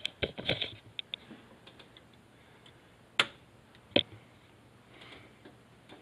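A quick run of light clicks and taps in the first second or so, then two sharper single clicks about three and four seconds in: switches and controls on the half-track's dashboard being worked.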